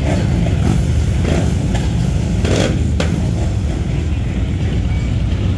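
Motorcycle engines running at low revs: a loud, steady, low rumble, with a few brief swells and a sharp click about three seconds in.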